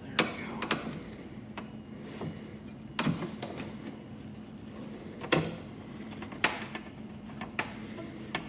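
Scattered sharp knocks and clicks, about seven in all at uneven spacing, from hardware and tools being handled against a car door's inner panel while a new window regulator is bolted in, over a steady low hum.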